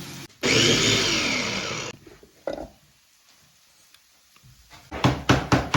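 Electric food chopper running in one burst of about a second and a half, its motor whine rising then falling in pitch as it chops chili peppers, with too few in the bowl to be chopped fine. A run of sharp knocks follows near the end.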